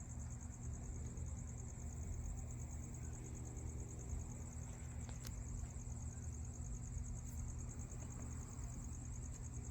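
Crickets trilling steadily in a continuous high-pitched pulsing chirr, over a low steady rumble.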